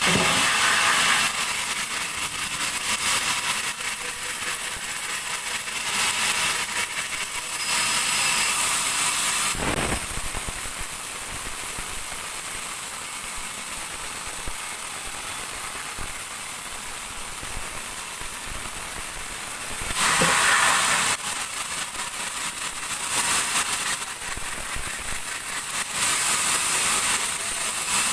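Large sawmill bandsaw cutting through a dry teak log: a steady high hiss of the blade in the wood, swelling louder for a second or two several times.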